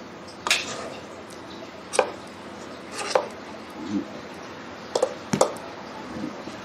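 Metal spoon clinking and scraping against a stainless steel bowl while mixing banana pieces into thick batter, about seven sharp knocks at uneven intervals, roughly one a second.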